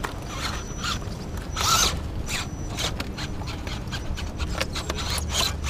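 Radio-controlled rock crawler clambering over rocks: many irregular clicks and scrapes of its tyres and chassis against the rock, over a faint steady high whine from its drive.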